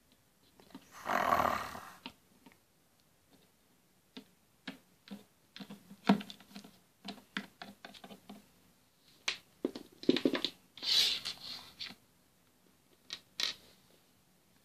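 Small plastic toy figures tapped and set down on a wooden tabletop, making scattered light clicks and knocks. A short breathy noise comes about a second in.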